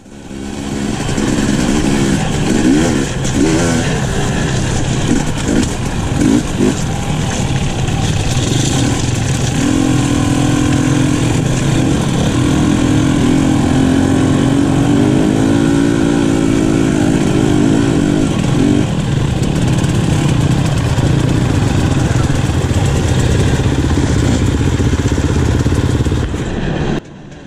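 Off-road dirt bike engines running and revving under load on a rocky trail climb, their pitch rising and falling with the throttle. The sound cuts off suddenly near the end.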